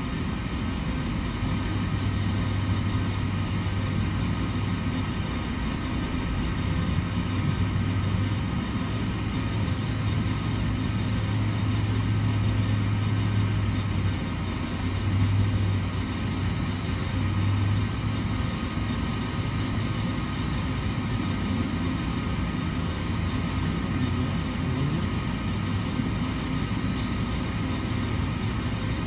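Steady mechanical drone of running machinery, with a low hum that joins about a second in and drops out about two thirds of the way through.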